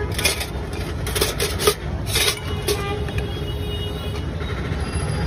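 A wooden spoon scraping kasundi mustard sauce out of a jar in several short strokes during the first two to three seconds, over a steady low rumble of street traffic.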